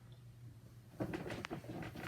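Progress Lighting Builder ceiling fan running on its low speed with a steady low hum. From about a second in comes a run of irregular clicks and rattles.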